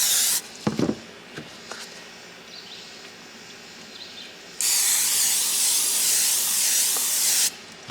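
Aerosol can of cooking spray hissing as it coats the inside of paver moulds. A spray ends about half a second in, a few light knocks follow, then a second spray runs for about three seconds.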